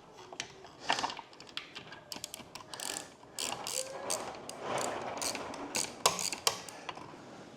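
Hand socket ratchet clicking in quick, irregular runs as a bolt on the big block's supercharger is worked loose.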